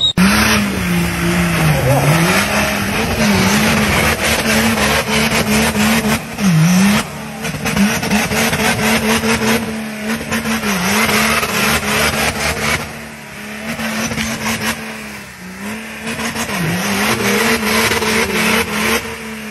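Off-road 4x4 truck's engine held at high revs under full throttle, its pitch dipping briefly and recovering every couple of seconds as it bogs under load, with its tyres spinning and churning through mud.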